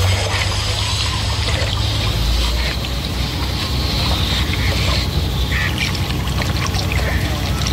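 A boat under way: a steady low engine rumble, with water washing and splashing.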